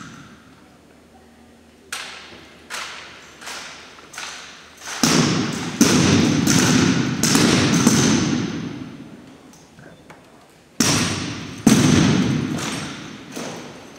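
A drill team's rifles and boots striking a hardwood gym floor in unison, echoing in the hall. The strikes fall in an even cadence about 0.7 s apart, soft at first, then a louder run of them from about five seconds in and again near the end.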